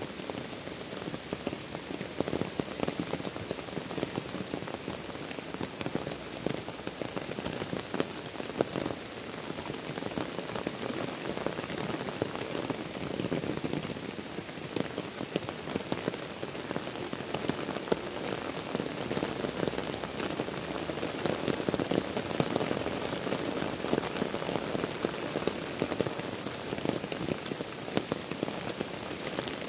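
Heavy rain pouring steadily onto a lake's surface: an even hiss of rainfall with many distinct nearby drops ticking through it.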